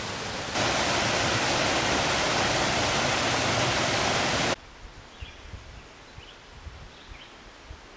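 Water pouring over a small concrete dam into a rocky brook: a steady, loud rush that starts about half a second in and cuts off suddenly about four and a half seconds in. Quiet woodland follows, with a few faint bird chirps.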